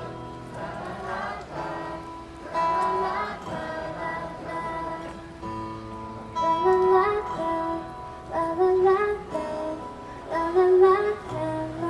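Live pop song: a female voice singing a melody over guitar accompaniment, in phrases that rise and fall in loudness.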